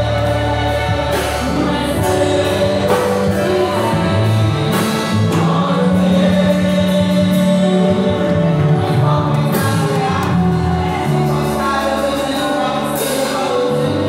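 Church congregation singing a gospel worship song together over steady instrumental backing.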